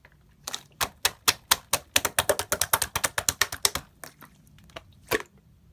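Clear jelly-textured slime being worked by hand, giving sharp clicking pops: a few spaced ones, then a rapid run of them, thinning to single clicks near the end.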